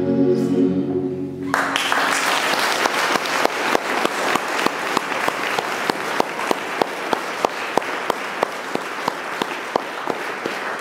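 Choir's closing chord held, then released about a second and a half in. Audience applause follows and soon settles into steady rhythmic clapping in unison, about three claps a second.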